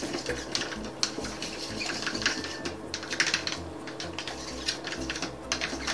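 Foam bead slime squeezed and pulled between hands, crackling with rapid, irregular clicks and pops as the beads crunch.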